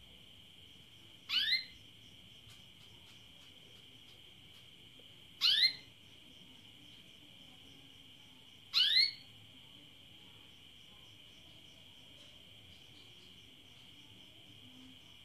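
Female domestic canary giving three short rising call notes a few seconds apart: the hen's call for a mate. A steady high-pitched drone runs underneath.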